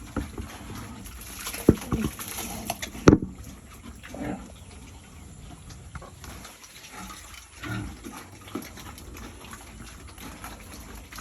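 Pigs eating wet feed from a trough, chomping and slurping their mash of maize flour and bran, with the odd grunt. Two sharp knocks come in the first few seconds, the second the louder.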